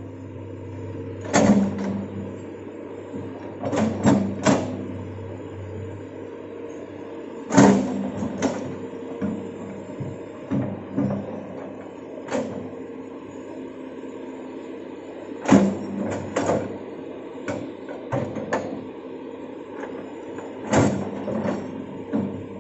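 Hitachi crawler excavator's diesel engine running steadily while it digs soil. Sharp metallic clanks from the bucket and arm come every few seconds, several close together around the 4 s and 16 s marks.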